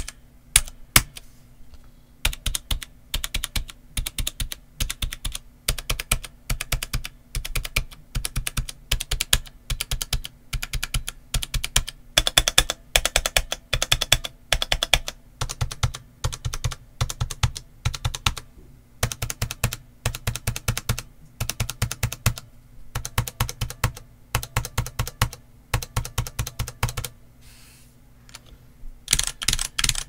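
Typing on a Spigen ArcPlay mechanical keyboard with stock Cherry MX Brown switches and PBT keycaps: a fast, continuous run of key clacks. The typing breaks off briefly near the start and for about two seconds near the end.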